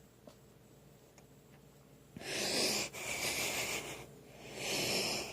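A man breathing hard and heavily into the microphone: three long, wheezy breaths starting about two seconds in, after a stretch of near silence. He holds that he is breathing hard, not laughing.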